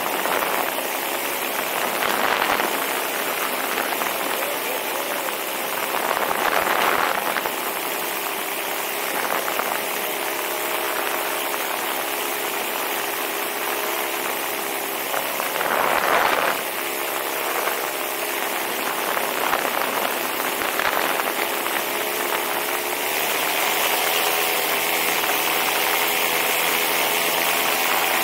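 Vittorazi Moster 185 single-cylinder two-stroke paramotor engine and propeller running steadily in flight, with wind buffeting the microphone now and then. Near the end the engine note rises a little and gets louder.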